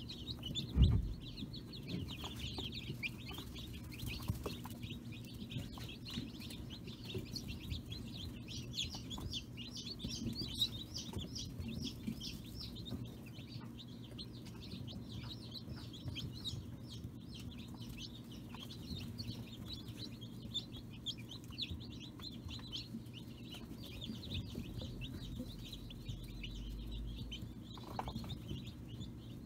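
A brooder full of newly hatched chicks peeping constantly, many short high cheeps overlapping, over a low steady hum. A single thump about a second in.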